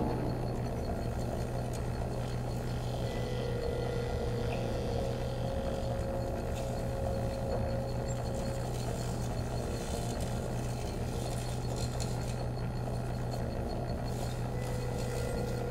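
Improvised electroacoustic texture: a steady low electronic drone with a few held tones above it, and scraping, rattling noises from handled sound objects that grow busier in the last third.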